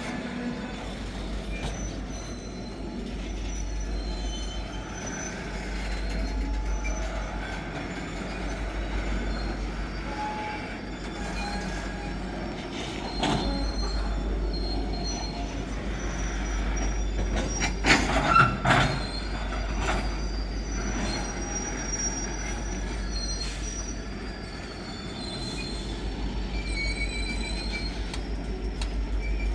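Freight wagons of a metre-gauge freight train rolling past with a steady low rumble and thin, high wheel squeal. There are sharp clanks about 13 seconds in and a louder cluster of knocks around 18 seconds.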